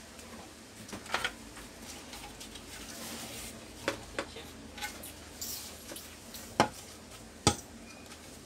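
Hard plastic casing pieces of an Epson L1300 printer knocking and clattering as they are handled and set down: a string of sharp clacks, the two loudest near the end.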